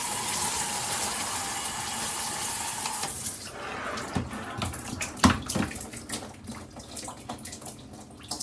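Water spraying steadily from a Cobbe handheld shower head, cutting off about three seconds in. Scattered drips and splashes follow, with one sharp knock a couple of seconds later.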